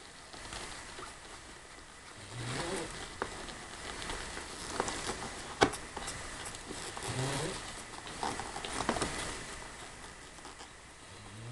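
Two-week-old French Bulldog puppies stirring on a blanket: soft rustling, two short low grunts, and scattered little clicks. The loudest is one sharp click about five and a half seconds in.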